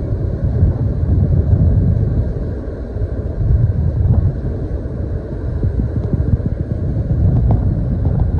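Loud, gusting low rumble of wind buffeting the microphone, swelling and easing every second or two.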